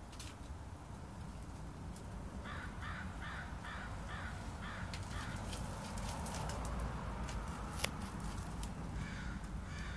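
A bird calling in a quick, evenly spaced series of about eight short calls, with a few more near the end. A single sharp click comes about eight seconds in.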